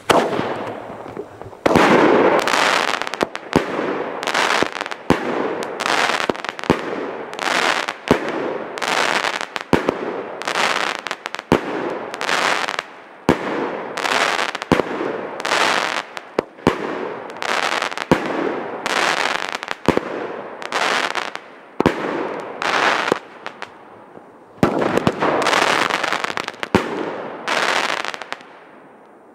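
Klasek Gladiator Extrem firework battery firing a long series of shots, a little more than one a second, each a sharp launch crack followed by a longer burst of crackling stars overhead. There is a short pause about 24 seconds in before the last few shots, and the firing dies away near the end.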